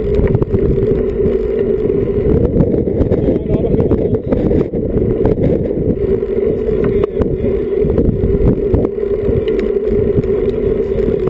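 Wind and road noise from riding a road bike, picked up by an action camera's microphone: a steady low rumble with a constant drone underneath.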